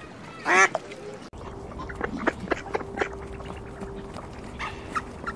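Duck quacking: one loud quack from a white domestic duck about half a second in. After that come a few soft, short calls and light clicks from a mallard drake pecking at gravel, over a faint steady tone.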